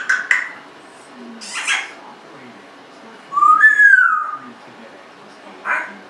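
Congo African grey parrot vocalizing: a few short clicks and chirps, then a loud whistle about three seconds in that rises and then falls in pitch, and one more short chirp near the end.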